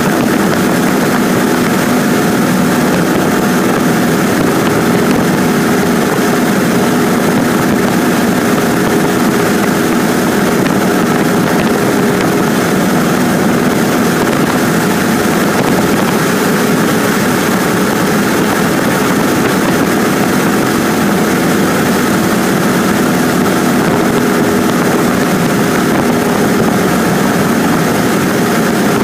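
Cessna 150's Continental O-200 four-cylinder engine and propeller droning steadily in flight, heard from inside the cockpit, with an even rush of noise over the engine's tone.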